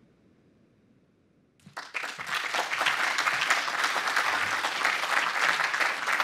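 A brief hush, then an audience breaks into applause about a second and a half in. The clapping is dense and quickly builds to a steady level.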